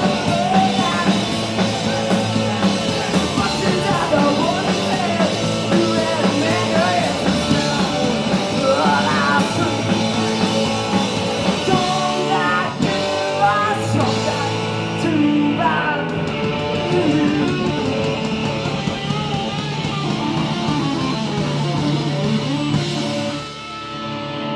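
Live punk rock band playing electric guitar, bass and drums at full volume, with no words sung; the sound drops off about a second before the end as the song winds down.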